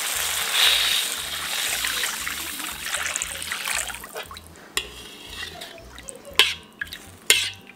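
Water poured from a container into a hot steel wok of sautéed shallots, garlic and chili, splashing loudly for about three and a half seconds. Then a metal spatula stirs the thin broth, with a few sharp clicks against the wok.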